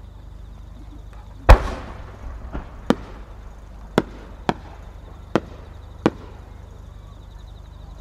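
An aerial firework shell fired from its mortar: one loud launch thump about a second and a half in, with a rumble trailing off after it. Five sharp cracks follow, spread over the next few seconds while the shell climbs.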